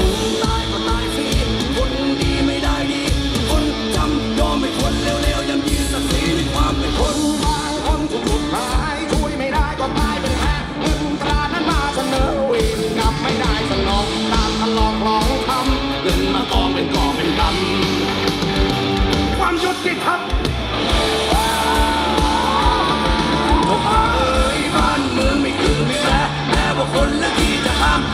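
Live rock band playing through the PA, heard from the audience: drums, electric and acoustic guitars and bass with a singing voice. A brief drop about twenty seconds in, then a higher melodic line.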